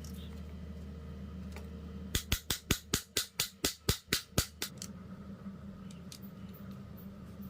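A quick run of about a dozen sharp knocks, some five a second for a couple of seconds, over a steady low hum.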